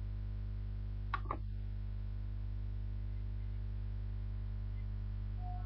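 Steady electrical mains hum, a low buzz built on 50 Hz and its multiples, with two quick clicks a fraction of a second apart just over a second in.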